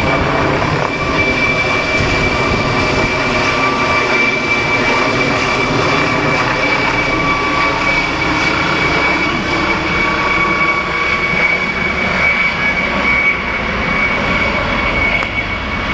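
Helicopter running close by: a steady high turbine whine over loud rotor noise, with the rotor downwash buffeting the microphone.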